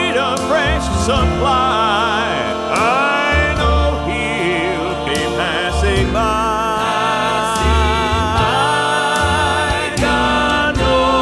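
Gospel song: a singer holding and gliding between notes with vibrato over instrumental backing with a steady bass line.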